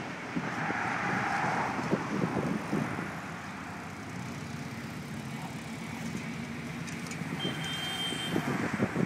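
Steady hum of road traffic from cars crossing the bridge, swelling briefly in the first two seconds. A thin high steady tone sounds for about a second near the end.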